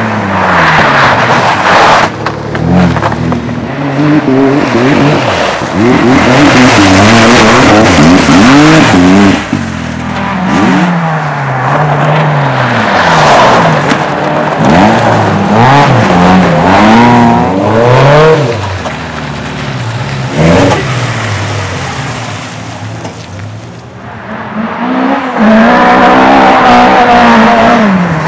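Race car engines run hard at high revs, the pitch climbing and dropping back again and again as they change gear and brake. Several cars pass in turn, with a quieter lull before another car comes through near the end.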